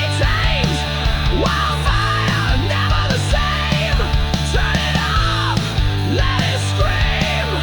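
Instrumental hard rock music: a distorted electric guitar plays repeated bent, gliding notes over a steady low bass line.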